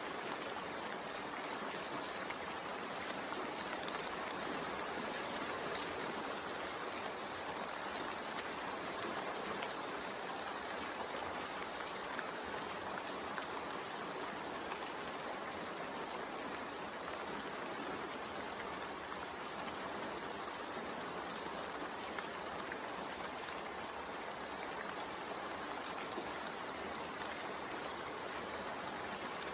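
Steady rain sound, an even rushing patter without breaks or changes.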